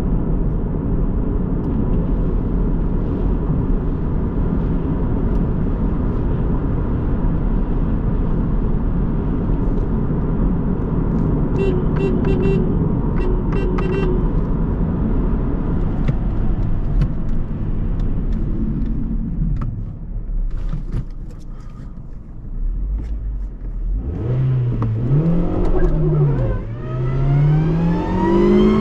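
Hyundai i30's 1.4-litre four-cylinder petrol engine and road noise with the car under way, a steady drone that drops away about twenty seconds in. From about twenty-four seconds the engine goes up and down in pitch twice, then rises steadily.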